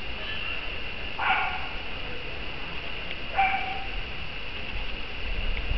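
A dog barking twice, two short sharp barks about two seconds apart.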